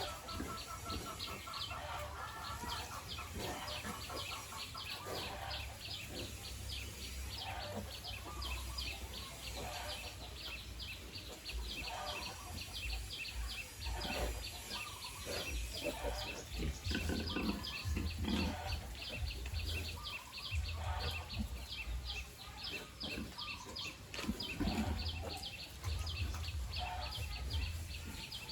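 Farmyard ambience: a steady train of rapid high chirps, about four to five a second, with chickens clucking, short low animal noises now and then, and a low rumble underneath.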